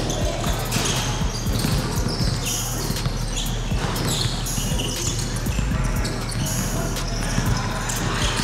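A basketball being dribbled and bounced on a hardwood court during play: a run of short thuds, with players moving on the floor.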